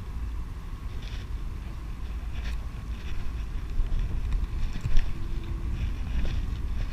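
Wind rumbling on the microphone, with a few faint clicks.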